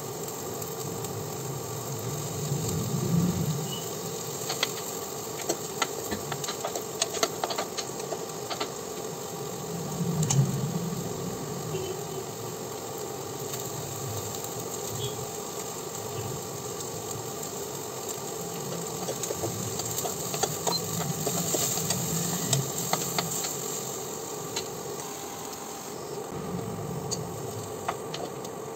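Kitchen stovetop cooking: a steady mechanical hum with hiss underneath, and scattered light clicks and taps of utensils against a frying pan as food is added and stirred.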